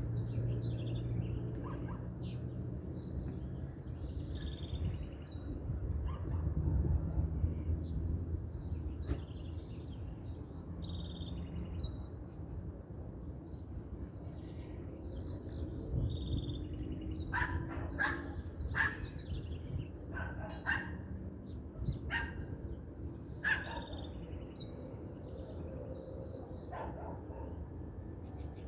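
Many small birds chirping and calling together in a dawn chorus, with a dog barking several times in the second half. A low steady rumble runs underneath.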